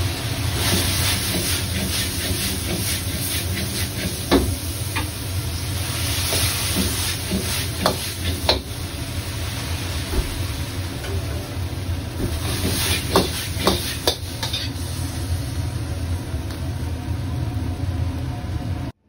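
Wok stir-fry over a high-output gas burner: the burner's steady rumble under the hiss of food sizzling in the carbon-steel wok. Several sharp clinks of the metal ladle against the wok as potato-starch slurry is stirred in to thicken the sauce.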